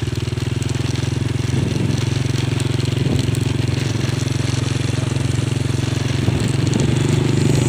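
A vehicle engine running steadily at a constant speed, a low, even engine note heard from the moving vehicle.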